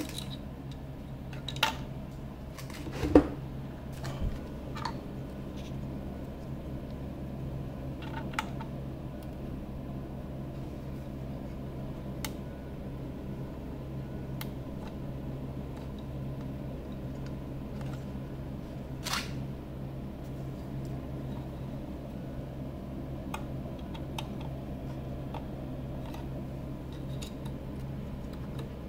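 Scattered light clicks and knocks of cables and connectors being handled inside a metal equipment chassis, over a steady low hum. The loudest knock comes about three seconds in; a few more follow in the first several seconds and one near the middle.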